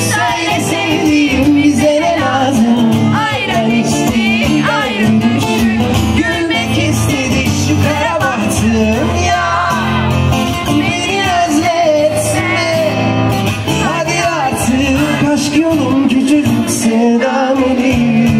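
Live pop song: an amplified acoustic guitar strummed under singing, played through a PA.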